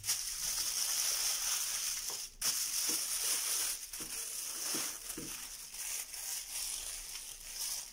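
Aluminium foil crinkling as sheets are folded and rolled into long strips by hand, a continuous crackle that breaks off briefly about two and a half seconds in.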